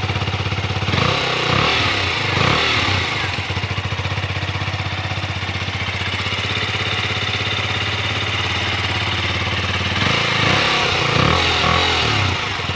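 KTM Duke 125's single-cylinder engine running through its stock exhaust, mostly a steady idle. The pitch briefly rises and falls a couple of times about a second in and again near the end.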